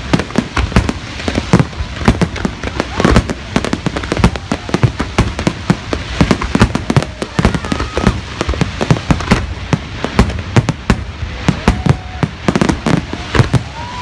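Fireworks display: a dense, continuous barrage of sharp bangs and crackling reports, many a second, with no break.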